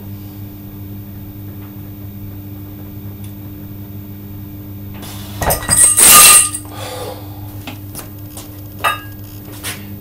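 Weight plates on a loaded grip handle clanking and ringing as they are set down on the floor, about five and a half seconds in, followed by a couple of lighter metallic clinks near the end. A steady low hum runs underneath.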